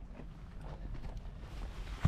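Faint footsteps of a person walking, over a steady low rumble on a body-worn action camera's microphone.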